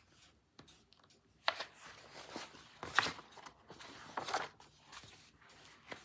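Paper rustles and soft taps from a hardcover picture book being handled as a page is turned: a few short, separate sounds, the loudest about three seconds in.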